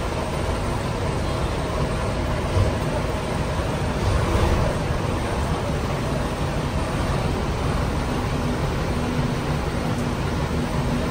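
Diesel engine of a large coach bus running at low revs as the bus turns slowly and moves off close by, a steady low rumble.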